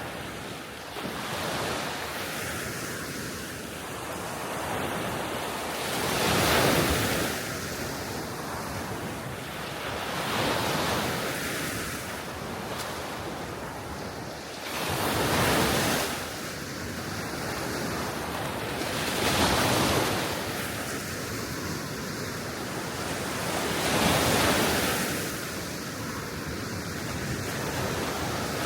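Small Baltic Sea waves breaking on the shore, a wash swelling about every four to five seconds over a steady hiss of wind on the microphone.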